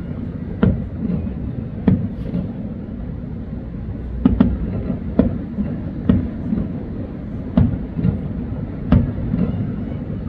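Aerial fireworks shells bursting: a sharp bang about every second, some close together, over a steady low rumble.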